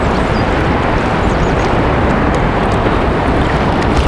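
Steady wind noise buffeting the microphone over choppy sea water, with faint small ticks above it.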